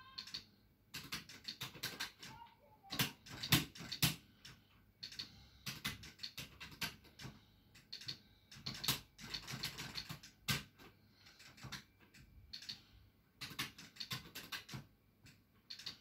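Rapid, irregular clacking of an arcade stick in play: a Crown 303 joystick lever and push buttons on a Qanba Obsidian fight stick, hit in quick flurries, with the busiest bursts a few seconds in.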